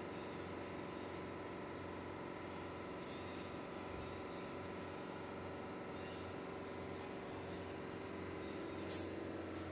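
A steady hum with several steady tones held at an even level, and one short click about nine seconds in.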